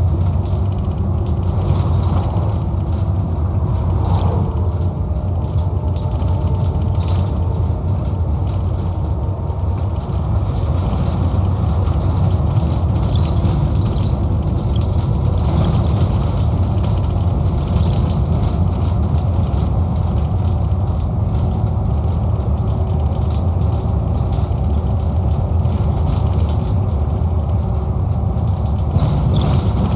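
Onboard a Scania K230UB Omnilink bus under way: the Scania DC09 diesel engine runs with a steady low drone, a faint whine comes from the ZF Ecomat automatic gearbox, and frequent clicks and rattles come from the saloon's panels and fittings.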